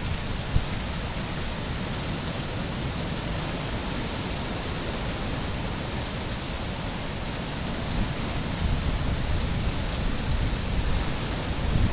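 Heavy sea surf washing over and breaking among shoreline rocks: a steady hiss of foaming water, growing a little louder in the last few seconds.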